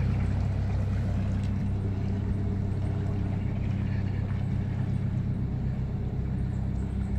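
Narrowboat diesel engine running steadily at low revs, a deep, even engine note.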